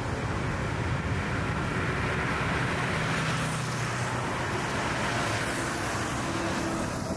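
City road traffic: the steady mixed engine and tyre noise of passing cars, swelling as a vehicle passes close around the middle.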